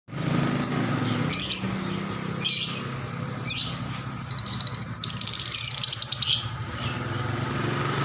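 Caged lovebirds calling: four loud, high-pitched calls about a second apart, then a fast run of chattering notes lasting about two seconds. A steady low hum runs underneath.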